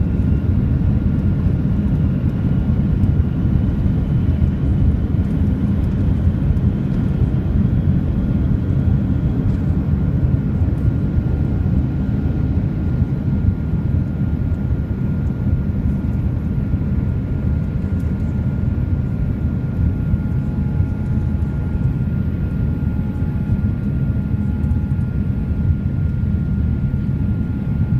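Steady low cabin roar of a Boeing 787 Dreamliner in its climb after takeoff, engine and airflow noise heard from inside the cabin, with a thin steady whine above it.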